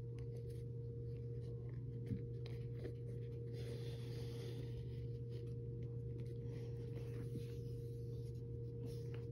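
Shoelace being worked through the cross laces of a Vans Old Skool shoe, with soft rubbing and scratching of lace against lace and shoe, strongest about three to five seconds in, and a few light clicks. A steady low hum lies underneath.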